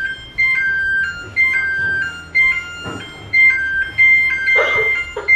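Electronic timer alarm going off: a two-note chime, a higher beep then a lower one, repeating about once a second. A short laugh or voice cuts in near the end.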